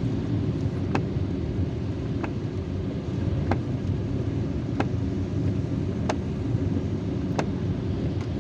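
Steady low rumble of a car driving on a wet road in the rain, heard from inside the cabin, with a short sharp click repeating evenly about every second and a quarter.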